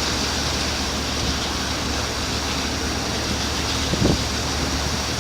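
Steady rushing wind and water noise over the low hum of a ship's engines, with a short thump about four seconds in.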